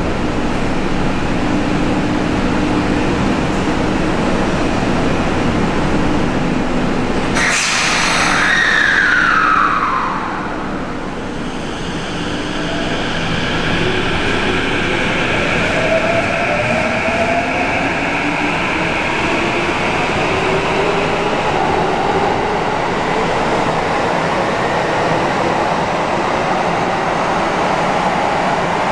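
Tokyo Metro Tōzai Line electric commuter train running through the station with a steady rumble. About seven seconds in there is a sharp click and a tone that falls over a couple of seconds. From about twelve seconds on, the traction motors whine in several tones that rise slowly in pitch as the train gathers speed.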